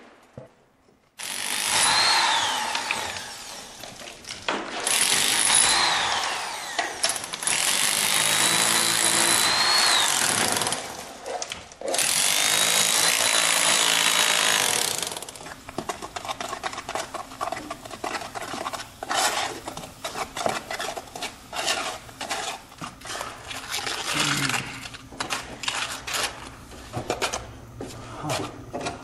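A power tool working on masonry in several bursts of a few seconds each, its whine rising and falling as it speeds up and slows. Then quick, busy scraping and tapping as mortar is worked onto the brick by hand.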